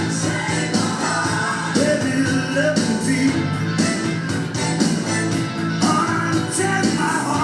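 Rock music with a sung vocal and a steady beat.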